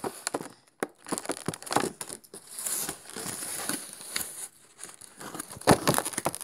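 Plastic packaging of a toy figurine set crinkling and crackling as it is handled and pulled open by hand, in irregular rustles and clicks.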